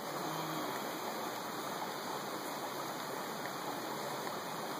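Stream water running, a steady, even rush with no pauses or strokes.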